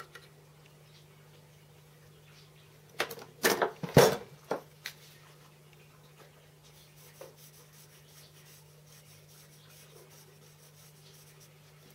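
Small tools handled on a mini lathe's bare bed: a cluster of sharp clicks and knocks about three to four and a half seconds in, then faint scratchy rubbing of a paint marker tip on the metal bed through the second half. A steady low hum sits under it all.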